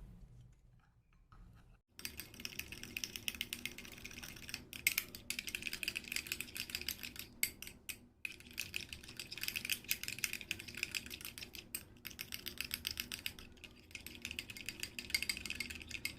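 Spoon stirring thick homemade slime in a glass bowl: a fast run of clicking and tapping that starts about two seconds in, with a few short breaks.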